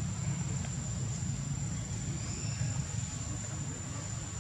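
Outdoor ambience: a steady low rumble under a continuous thin, high-pitched insect drone.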